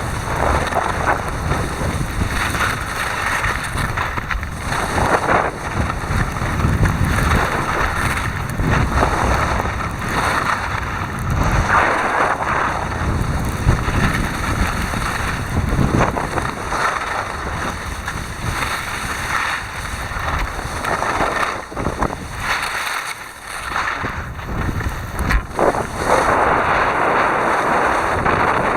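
Wind buffeting and rushing over the microphone while skiing downhill, a loud gusting roar that eases briefly about two-thirds of the way through.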